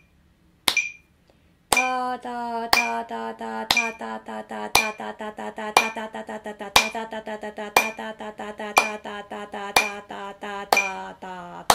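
A woman chanting rhythmic syllables on one held pitch, dividing each beat into two, three, four, five and six and back again. Underneath, a metronome ticks at 60 beats a minute, once a second, with hand claps on the beat.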